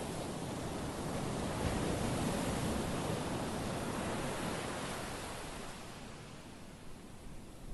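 Sea surf breaking and washing up a pebble shore. The steady rush of water swells to a peak about two seconds in, then slowly ebbs away.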